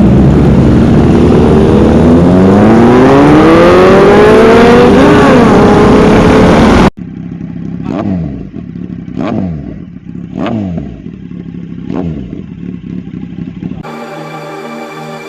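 A sport motorcycle engine revving up hard, its pitch rising steadily, until the sound cuts off abruptly about seven seconds in. Then come four sharp hits, each trailed by a falling tone, and electronic music starts near the end.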